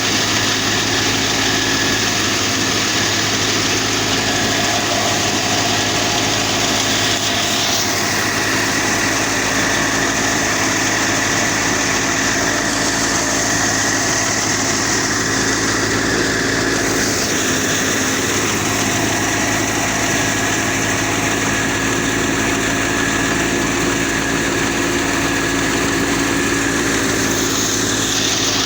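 Wheat thresher running steadily under power, a continuous loud mechanical drone with many steady tones.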